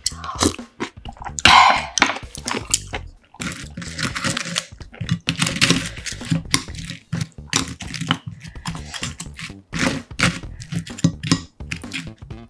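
Close-miked eating sounds: a loud slurp of spicy ramen broth from a spoon about a second and a half in, then wet chewing and lip smacking, with small clicks of chopsticks picking up fried sweet and sour pork.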